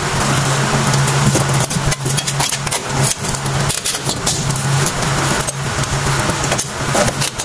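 A steady engine hum runs throughout, with scattered light clicks of a metal tool against the drum brake shoes and springs.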